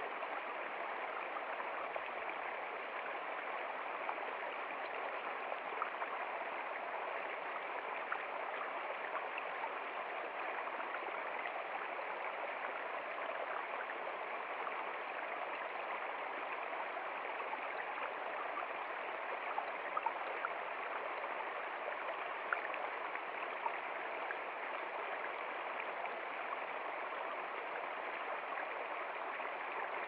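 Shallow rocky stream rushing and splashing over stones in small cascades: a steady, even rush of water with a few brief brighter splashes.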